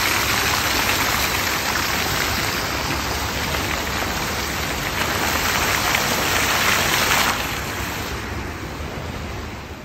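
Steady rushing noise, even and without pitch, that thins out from about seven seconds in and fades away at the end.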